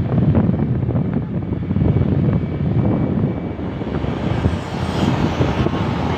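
Wind rushing and buffeting over the microphone of a moving motorcycle, with the bike's engine and road noise underneath as a steady, fluctuating rumble.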